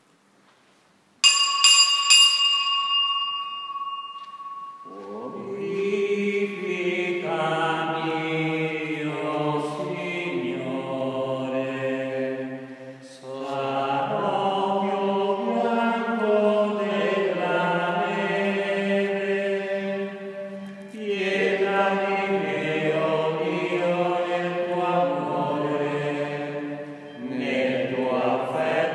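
A small bell rung with three quick strikes about a second in, ringing out for a couple of seconds, as at the start of Mass; then a voice singing a slow hymn in long phrases with short breaks.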